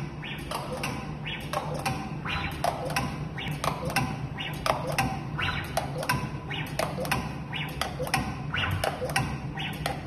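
Smart door lock durability tester cycling its pneumatic actuators against the lock's keypad and handle: sharp clicks, each followed by a short hiss, repeating about twice a second over a steady machine hum.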